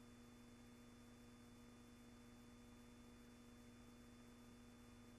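Near silence: a faint steady hum with a thin high whine, and no sound from the trucks or mud in the picture.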